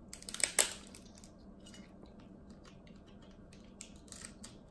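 Cooked king crab leg being broken apart by hand: a quick run of shell cracks and snaps in the first second, then a few lighter cracks near the end.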